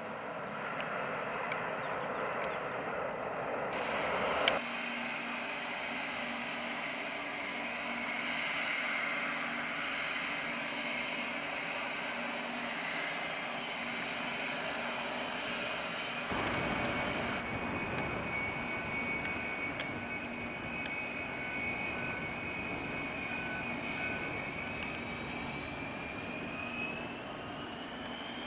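Airliner turbine engines running with a steady high whine that climbs in pitch near the end, over a wash of engine noise. The sound changes abruptly twice, about four seconds in and about sixteen seconds in.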